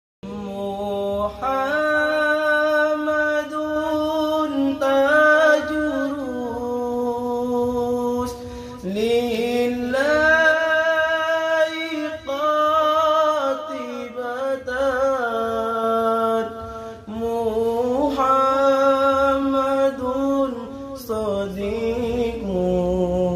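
Male voice singing an Islamic sholawat, long held notes with melismatic ornaments and pitch glides, broken by short breath pauses. The sound cuts out for a moment right at the start.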